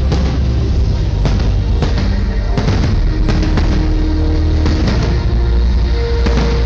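Fireworks going off in a quick series of sharp bangs over loud music with a heavy, steady bass, heard through a phone's microphone.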